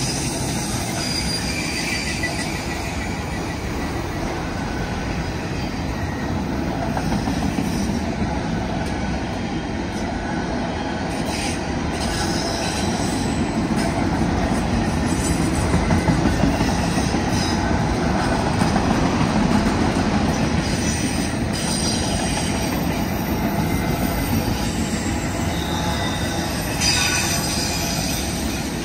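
Freight train of autorack cars rolling past at close range: a steady rumble of steel wheels on rail, with high-pitched wheel squeal coming and going. A few sharp clanks, the sharpest about two seconds before the end.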